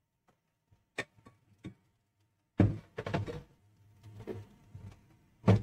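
Knocks and thuds of a steel pot and boiled cocoyam being handled in a stainless-steel kitchen sink, with tap water running. Three light knocks come about a second in. A heavy thud follows shortly after, then a second one near the end.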